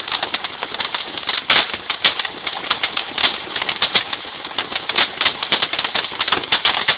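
Firework crackling rapidly and continuously, a dense run of small pops with one sharper crack about a second and a half in.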